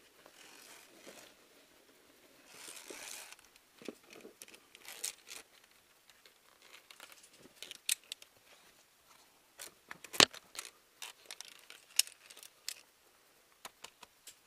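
Climbing handling noise: rustles and scrapes of clothing and gear against rock, with scattered sharp metallic clicks from via ferrata carabiners and lanyard on the steel cable and iron rungs. The loudest click comes about ten seconds in.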